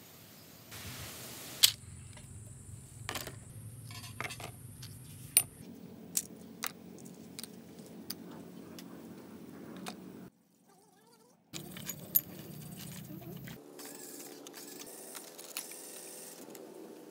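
Small rusty bicycle parts (brake caliper pieces and bearing cups) clinking and clattering, metal against metal and against a plastic tray, as they are handled and dropped in. A series of sharp irregular clicks, broken by a short silence just past the middle.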